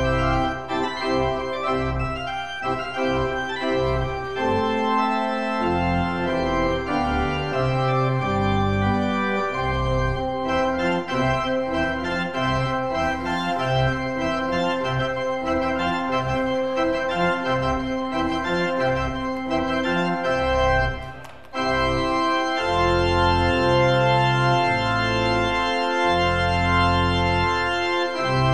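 Church organ playing a postlude: held chords over a moving bass line, with a brief break about twenty-one seconds in before the playing resumes.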